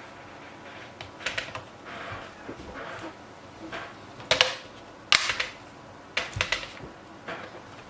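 Plastic screen bezel of a Lenovo ThinkPad T420s being pressed onto the laptop lid, its clips snapping into place in a string of short, sharp clicks about a second apart. The loudest snaps come just past the middle.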